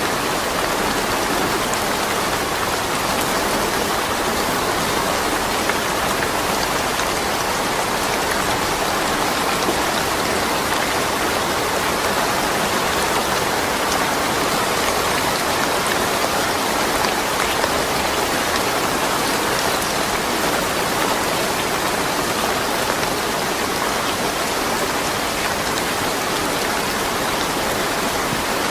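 Steady rain falling, an even hiss of drops without thunder.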